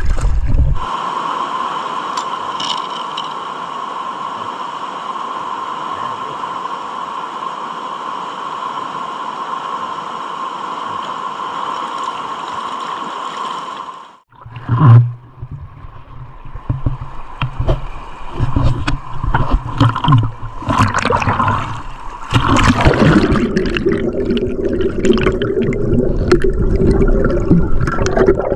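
Water gurgling and rushing around the microphone, a steady hiss for the first half, then broken by a sudden loud knock and irregular knocks and sloshing that grow louder about two-thirds of the way in.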